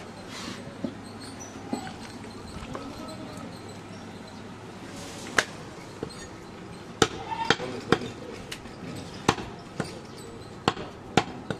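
Butcher's cleaver chopping goat meat on a wooden tree-stump block: sharp knocks on the wood, a few scattered ones at first, then a quicker run of about eight chops in the second half.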